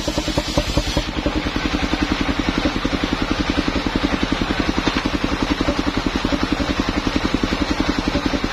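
Engine of a portable circular-saw sawmill running steadily with a rapid, even beat while a log is pushed through the spinning circular blade for a lengthwise cut.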